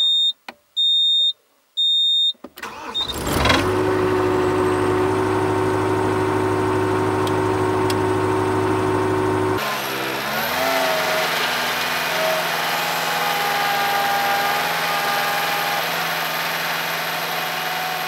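Caterpillar 247B compact track loader's turbo diesel engine: three short high beeps from the dash as the key is turned, then the engine cranks and starts about three seconds in and runs steadily. About ten seconds in its pitch rises and shifts, with a thin whine over the engine.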